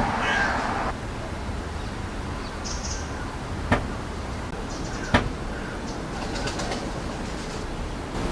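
Two sharp single knocks, as of something being struck, about a second and a half apart. A short bird chirp comes just before the first.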